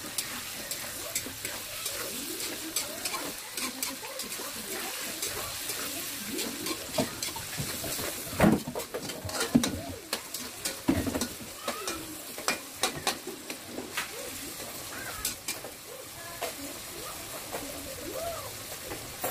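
Food sizzling in a frying pan while being stirred, with a spatula clicking and scraping against the pan throughout.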